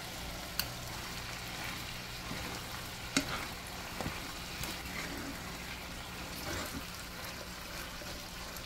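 Ground beef frying with a steady sizzle in a nonstick pan while a wooden spoon stirs it. The spoon taps against the pan a few times.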